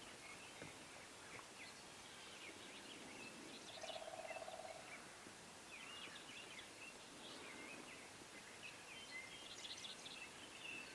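Faint outdoor ambience with scattered songbird chirps, and a short rapid rattle about four seconds in.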